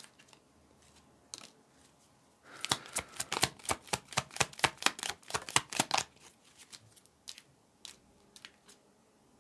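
A deck of tarot cards shuffled by hand: a quick run of card clicks and snaps starting a couple of seconds in and lasting about three seconds, then a few scattered taps.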